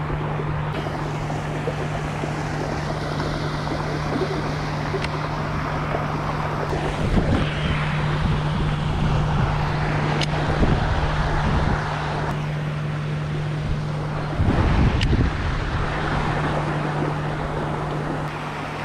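A fishing boat's motor running steadily with a constant low hum, while wind buffets the microphone and water rushes past. There are two rougher, louder surges, about seven seconds in and again near fifteen seconds.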